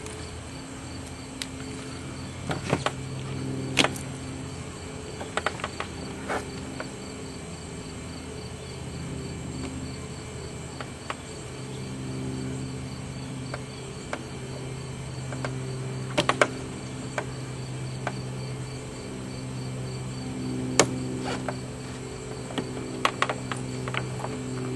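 Scattered sharp metal clicks and ticks of a small blade prying at a car door's lock mechanism. They sound over a steady low hum and a faint continuous insect-like chirping.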